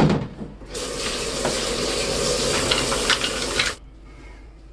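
A sudden knock, then tap water running into a stainless steel sink for about three seconds before it cuts off.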